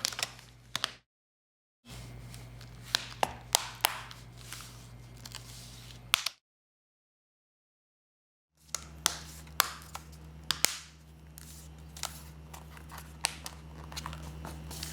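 Plastic screen bezel of a Dell 3100 Chromebook being pressed onto the lid, its clips snapping into place in a series of sharp clicks over a low electrical hum. The sound drops out completely twice, for about a second and then for about two seconds.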